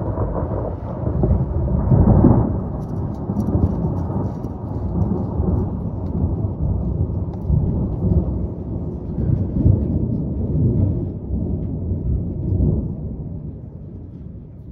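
Long rolling thunder rumble, swelling to its loudest about two seconds in, then rolling on in uneven waves before slowly fading near the end.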